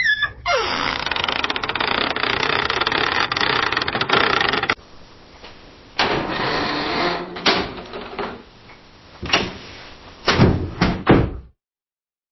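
Door creak sound effects: a long, rough, grinding creak for about four seconds, then after a short pause a second door with shorter creaks and several sharp knocks, the loudest near the end.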